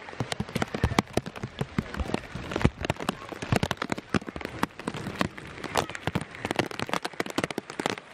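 Heavy rain pattering on a plastic bag wrapped over the camera, a dense stream of sharp, irregular taps close to the microphone.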